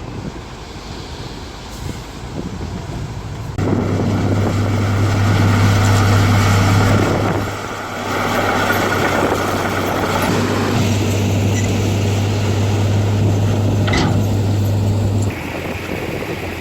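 Heavy diesel construction machinery running hard with a steady low hum. It comes in suddenly about three and a half seconds in, dips briefly halfway through, and cuts off suddenly near the end, with wind noise before it.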